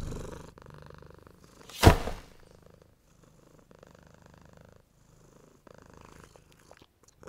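A cat purring, loudest at the start and then fainter in short stretches. About two seconds in comes a single sharp, loud thump.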